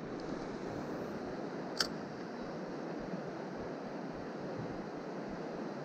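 Steady rush of flowing river water, with one short click about two seconds in.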